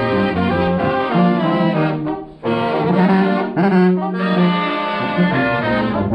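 Marching brass band with a sousaphone playing a tune, with a moving melody over a steady bass line; the music drops out for a moment about two and a half seconds in, then comes straight back.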